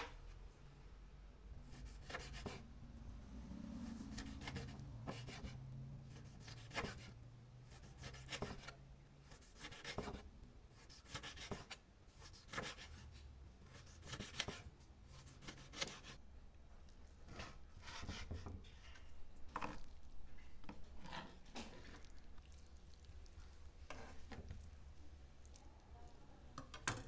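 Chef's knife slicing raw pork belly on a plastic cutting board: faint, irregular knife strokes, about one or two a second, each ending in a light tap of the blade on the board.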